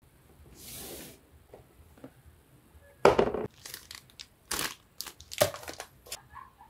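Plastic packaging and a cardboard box being handled and pulled open: a soft rustle, then a run of crinkling, tearing bursts, the loudest about three seconds in.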